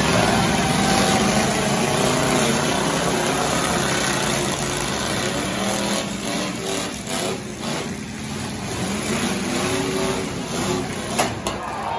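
Several demolition derby pickup trucks' engines running and revving as the trucks ram and push against each other, the pitch rising and falling throughout. A short sharp knock sounds about a second before the end.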